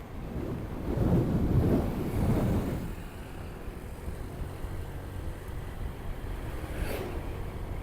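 Motorcycle riding at road speed, engine and wind rumbling on the action camera's microphone. A louder surge of rumble comes about a second in and eases off by three seconds, and a brief click sounds near the end.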